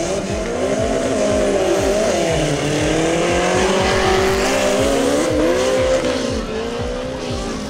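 Two small four-cylinder 4x4 engines, Suzuki Samurai-type, revving hard together as the trucks launch and accelerate away on a dirt drag strip. The pitch climbs and drops through the gear changes, and the sound fades near the end as they pull away.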